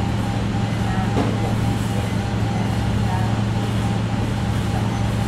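Steady low hum filling the room, with a faint, regular short beeping from the patient monitor wired to the infant CPR manikin.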